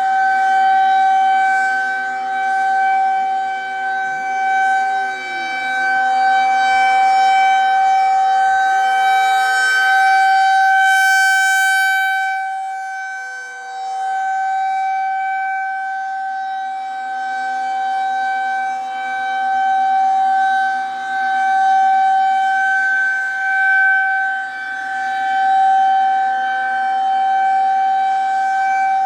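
Outdoor tornado warning siren sounding a steady alert tone during a scheduled monthly test. The pitch holds steady while the loudness swells and fades every few seconds.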